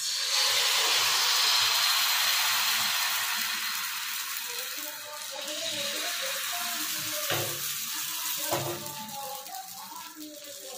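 Patishapta batter sizzling as it is poured onto a hot oiled non-stick pan: a loud hiss that starts at once and slowly dies down as the thin layer sets. Two short knocks come later, as the ladle touches the pan while spreading the batter.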